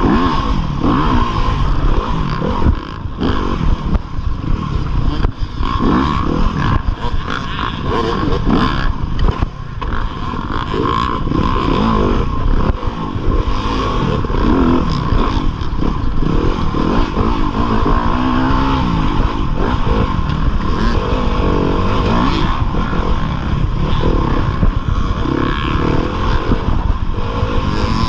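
2015 Yamaha YZ250FX dirt bike's single-cylinder four-stroke engine running hard, revving up and down over and over as the throttle is worked, with scattered knocks and clatter.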